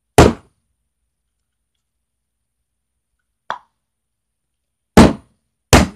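Loud, sharp thumps from objects knocked right beside the microphone: one at the start and two near the end less than a second apart, with a lighter tap about midway.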